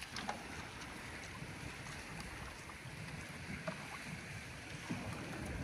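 Water lapping and sloshing with wind on the microphone, and a few faint light knocks.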